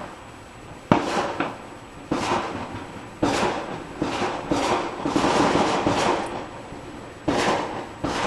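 Neighbourhood fireworks going off: a string of sharp bangs roughly a second apart, each trailing off, with a quicker run of reports in the middle.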